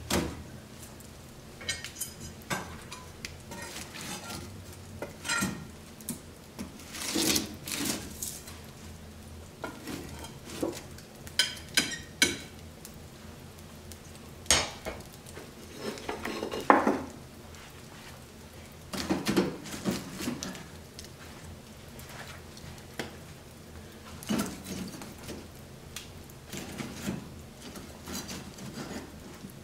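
Bricks being handled and set into a wood stove's firebox: irregular knocks, clunks and scrapes of brick on brick and on the hearth, coming in clusters every few seconds.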